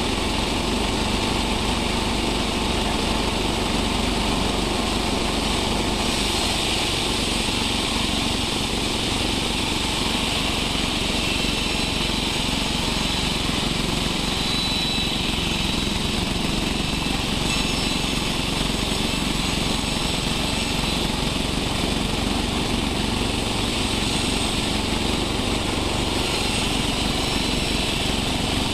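Sawmill machinery running steadily, a loud constant machine drone with a faint high whine that comes and goes.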